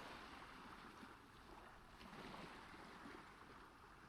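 Faint recorded ocean surf: a soft, even wash of waves that swells a little and eases again.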